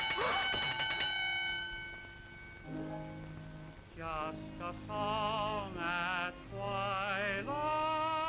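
Ringing tones fading out in the first second, then an orchestral accompaniment starts and a voice sings in an operatic style with heavy vibrato, phrase by phrase, on an early sound-film soundtrack.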